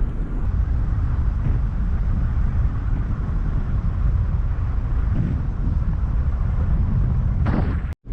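Car driving along a road, heard from inside the cabin: a steady low rumble of road and engine noise. The sound cuts out suddenly for a moment just before the end.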